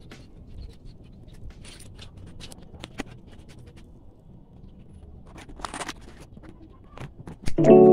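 Close-up handling of a Chinese holly bonsai: short rasping scrapes against the branches and scattered sharp clicks of pruning shears snipping twigs. Keyboard music starts abruptly near the end.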